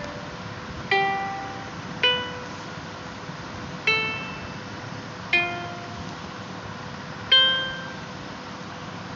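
Background music of slow, single plucked string notes, five of them spaced one to two seconds apart, each ringing out and fading, over a faint steady hiss.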